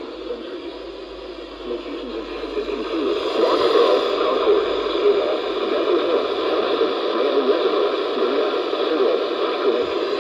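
Radio receiver hissing with static while tuned to a weak or empty weather-radio channel: a steady rush of noise with no clear voice, growing louder about three seconds in.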